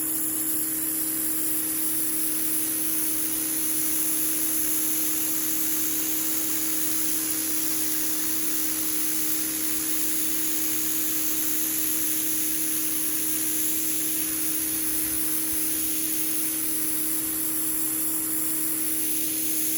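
Pressure washer running steadily: the water jet makes a constant hiss against the driveway over an unchanging motor hum.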